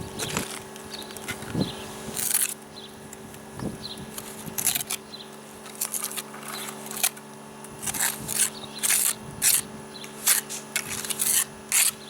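About a dozen short, hissing scrapes at irregular intervals, with the ones near the end coming quicker: a steel trowel spreading and scraping mortar on concrete blocks. A steady low hum runs underneath.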